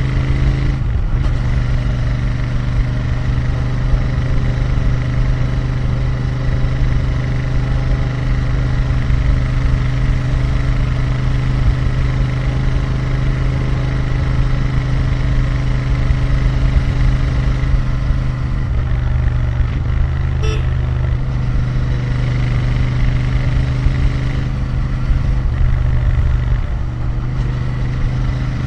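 Royal Enfield Interceptor 650's parallel-twin engine and exhaust running under way at a steady pace. The engine note dips briefly in pitch and comes back up a few times: about a second in, and again around 19, 25 and 27 seconds.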